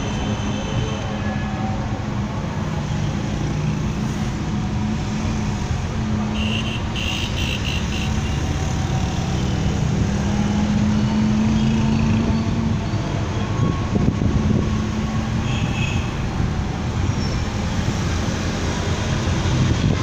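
City traffic heard from a moving vehicle: steady engine hum and road rumble. A few short high-pitched beeps come about seven seconds in and again about sixteen seconds in.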